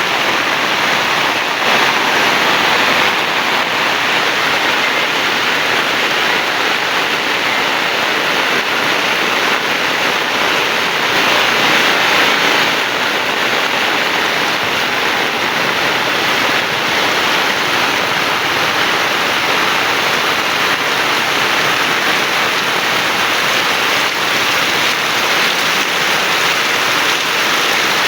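Heavy rain pouring steadily, a dense even hiss that swells slightly a couple of times.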